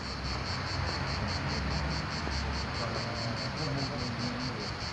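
Cicadas singing in an even, rapid pulse of about seven pulses a second, over a low background rumble.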